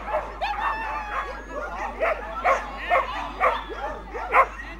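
Dogs barking and yipping at a flyball race, one sharp bark after another at about two a second, with some calls overlapping.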